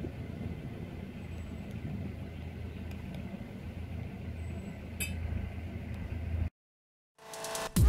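A motor cruiser's engine running with a steady low rumble, with a short clink about five seconds in. The sound cuts off suddenly to silence, and music begins near the end.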